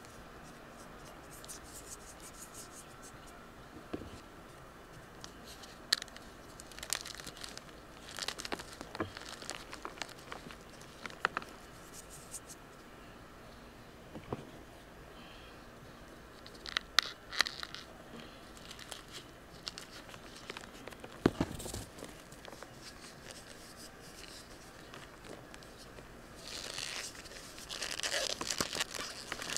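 Dyed gym chalk blocks dusted with cornstarch crushed and crumbled by hand: scattered soft crunches and crackles, building into a denser run of crumbling near the end.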